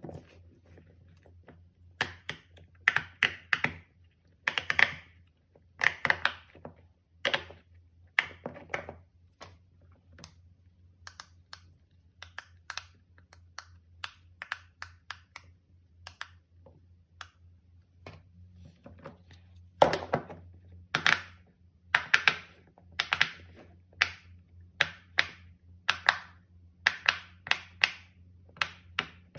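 Silicone pop-it fidget toys being handled and pressed on a tabletop: runs of soft clicks, taps and thunks, in dense clusters at the start and again in the second half, sparser in the middle.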